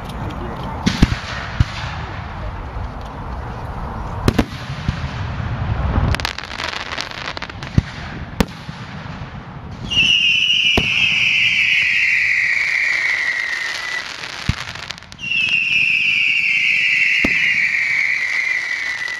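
Fireworks display: scattered sharp bangs of aerial shells bursting, with crackle, through the first half. Then come two long high whistles, each falling in pitch over about four seconds, from whistling fireworks.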